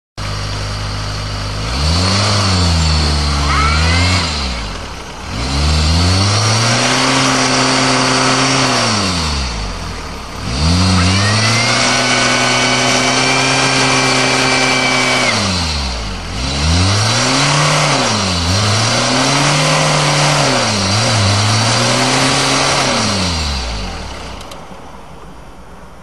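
First-generation Chrysler minivan's engine revved hard four times, each rev held for a few seconds, as its front wheels spin in deep snow: the van is stuck and rubbing on its frame. A thin high whine rides over the third rev, and the engine drops back near the end.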